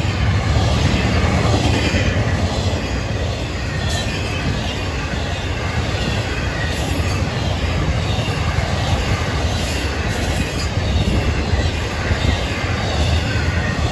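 Florida East Coast Railway intermodal freight cars rolling past close by: a steady, loud rumble of steel wheels on the rails.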